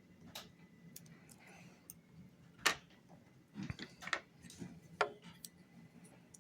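Small metallic clicks and taps of lock picks and a tension tool working inside a lock, irregular, with the loudest click a little under three seconds in and a quick run of clicks in the second half.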